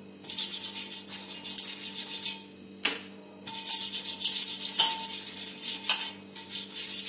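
A hand rubbing oil over a perforated stainless-steel steamer plate: a dry swishing of palm on metal in quick repeated strokes, pausing briefly partway through, with a few light metallic clicks.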